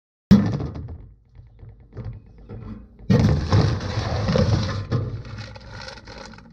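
A mailbox door is opened with a sudden thunk near the start, then a plastic mailer package scrapes and rustles loudly for about two seconds as it is pulled out of the box, followed by quieter handling of the package.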